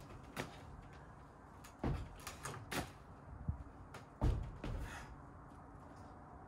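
Dry-tooling ice tools and crampons knocking and scraping against holds on a climbing wall during a dynamic move: a series of short knocks and thuds, the loudest about four seconds in.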